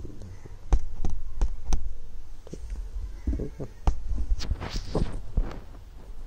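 Aari hook needle piercing embroidery fabric and drawing thread through while stitching on beads: a run of irregular sharp clicks and taps, with a short scratchy rustle of thread pulled through about four and a half seconds in.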